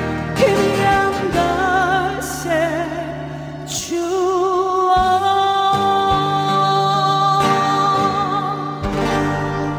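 Trot ballad music: a lead melody line with heavy vibrato over a steady backing band, settling into long held notes from about four seconds in.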